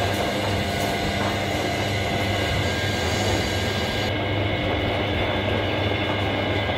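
Metal lathe running with a steady low hum and mechanical noise as its cutting tool resurfaces the face of a truck flywheel.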